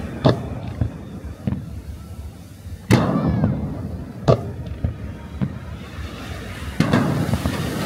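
Aerial firework shells bursting: about five heavy booms at uneven gaps, the loudest about three seconds in, each trailing off in a rumbling echo, with smaller pops in between.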